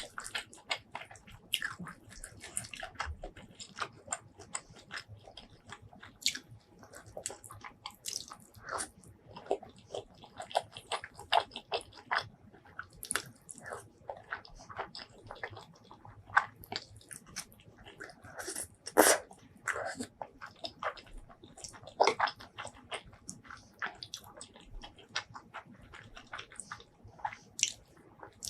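Close-miked eating sounds: wet chewing, lip smacks and mouth clicks, coming irregularly and densely, with a louder bite or smack about two-thirds of the way through.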